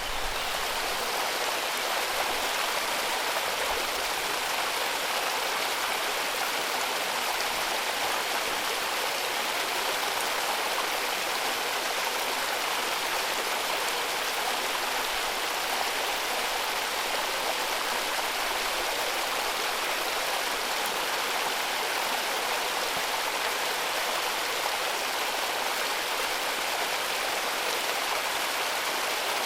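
Mountain water rushing steadily over rocks, a full, even, hissing rush of falling and flowing water with no other events.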